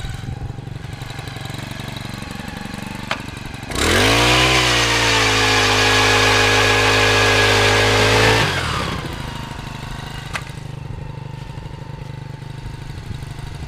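Gas-powered ice auger engine idling, then opened to full throttle about four seconds in, held at a high steady pitch for about four and a half seconds as it drills through the ice, and dropped back to idle.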